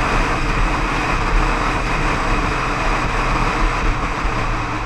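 Motorcycle cruising steadily at road speed: a constant rush of wind and road noise over a low engine drone.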